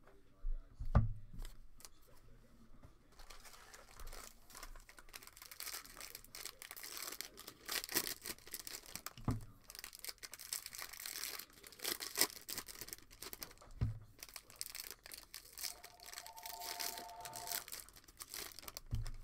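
Foil trading-card pack wrappers crinkling and tearing as packs are opened and the cards handled, with a few soft low thumps.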